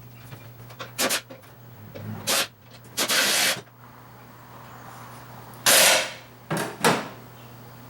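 Workshop handling noise from tools and metal parts: several sharp knocks and clanks, and two half-second hissing bursts, about three seconds in and about six seconds in.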